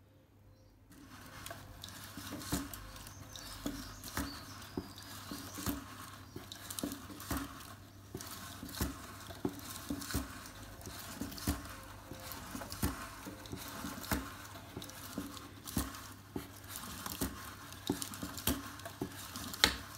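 A cardboard automaton of a trout running: its card body segments and wire rods rattling and scraping. Irregular sharp clicks, about one or two a second, stand out, starting about a second in.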